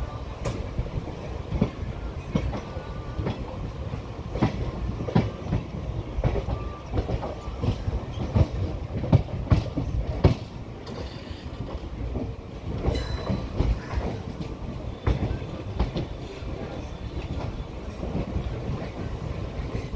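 Wheels of the 02834 Howrah–Ahmedabad SF Special passenger train clacking over the track as it runs, heard from a coach's open doorway: a steady rumble under irregular sharp clacks that are thickest in the middle.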